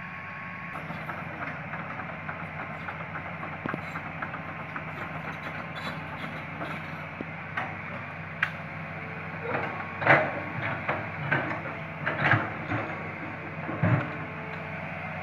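Hitachi Zaxis 210LC long-arm excavator's diesel engine running steadily as the machine works, with faint ticking and then several loud knocks in the second half.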